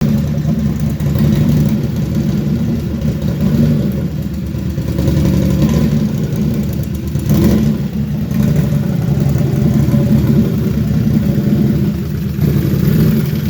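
Can-Am Outlander 800 ATV's Rotax V-twin engine running steadily, briefly louder about seven and a half seconds in; the owner is listening for a noise he blames on the clutch.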